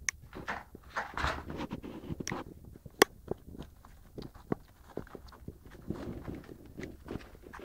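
Light scuffs and clicks of an English bulldog puppy's paws moving about on artificial turf, irregular, with one sharper click about three seconds in.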